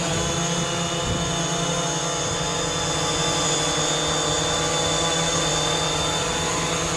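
DJI Mavic Pro quadcopter in flight on CamKix low-noise replacement propellers, its motors and props giving a steady multi-toned buzz, with wind buffeting the microphone.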